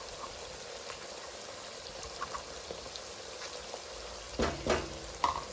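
Steady sizzle of cubed capsicum and onion frying in oil in a large kadhai on high flame as tomato ketchup is poured in. A brief clatter comes about four and a half seconds in.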